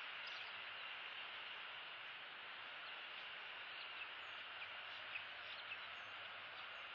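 Steady outdoor hiss with a few faint, short high chirps about four to six seconds in.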